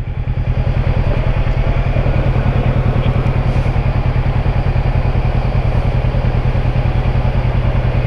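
Kawasaki Versys 650's parallel-twin engine idling with a steady, even pulse while the motorcycle stands still.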